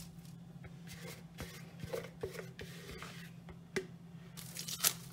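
Quiet, scattered scrapes and taps of a silicone spatula pushing thick modelling chocolate out of a bowl onto cling film, with the plastic wrap rustling; the loudest sound is a short, crisp crinkle near the end.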